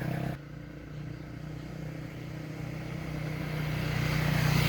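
A vehicle engine running steadily with a low, even hum. It drops slightly just after the start, then grows louder until it cuts off abruptly at the end.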